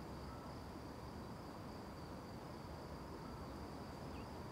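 Crickets chirring faintly and steadily, one unbroken high trill over a low background hiss.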